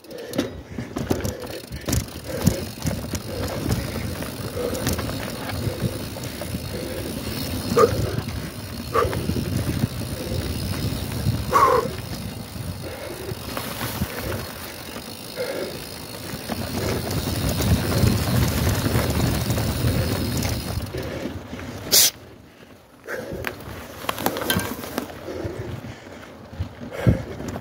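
Mountain bike being ridden over a rough dirt trail: a steady rumble of tyres with the chain and frame rattling, broken by several sharp knocks over bumps.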